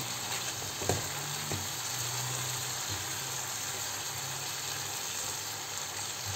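Chicken, pepper and tomato sofrito sizzling gently in a non-stick frying pan while a silicone spatula stirs it, with a couple of soft knocks about a second in.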